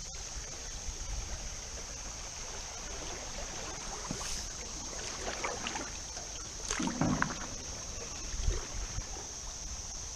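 Canoe paddles dipping and pulling through river water alongside an aluminium canoe, with splashy strokes and a few low thumps, over a steady high hiss.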